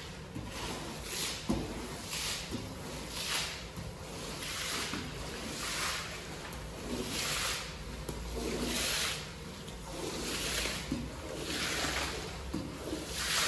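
Squeegee on a long handle pushed in repeated strokes across a soaked carpet, swishing water out of the pile about once a second.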